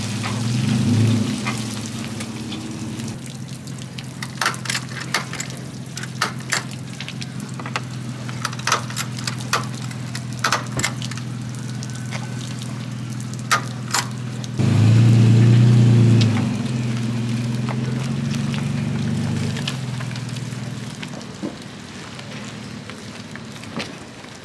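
Pickup truck engine running steadily while water drips and pours from the boat's hull onto the concrete ramp, with many sharp ticks and drips through the middle. The engine gets much louder about fifteen seconds in as the truck pulls the trailered boat away, then fades toward the end.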